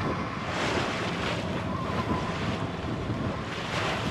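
Wind buffeting the microphone over the rush of waves against a small sailboat in rough seas, the noise swelling and easing in gusts.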